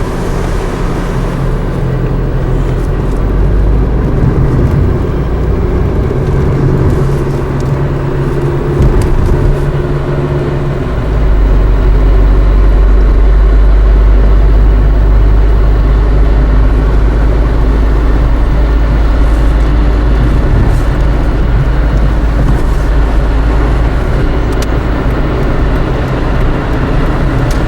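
Car driving, with an engine hum and road rumble. About eleven seconds in, a deep low rumble grows louder and stays.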